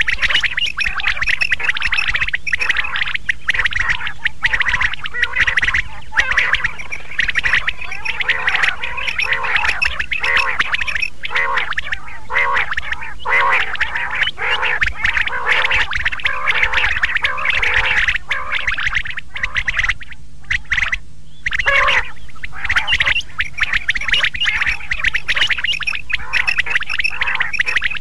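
Quail calling: a dense run of rapidly repeated call notes from several birds, with a brief lull about two-thirds of the way through. A steady low hum lies under the calls.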